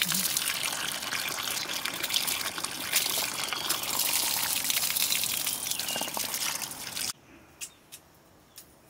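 Water pouring from an outdoor pipe spout and splashing over a metal bowl as hands rinse it; a steady, loud splashing that stops abruptly about seven seconds in. A few faint clicks follow.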